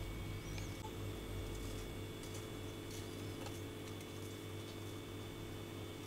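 A steady low hum with a few faint, sharp clicks of a paring knife cutting through apple onto a wooden cutting board.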